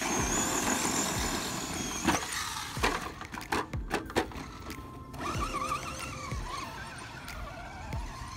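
Pro-Line Pro-MT 4x4 1/10-scale RC monster truck's electric motor whining as it drives on loose dirt, the pitch rising and falling with the throttle. Several sharp knocks come between about two and four seconds in.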